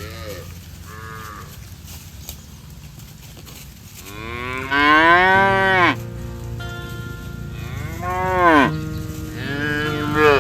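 Cows mooing: a couple of faint short calls at first, then three long, loud moos from about four seconds in, each rising and then falling in pitch.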